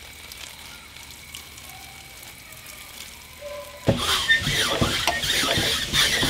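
Metal wall-mounted garden hose reel being cranked by hand to wind up the hose, starting suddenly about four seconds in: a loud rattling and clattering with repeated knocks as the drum turns. Before that, only a faint steady background.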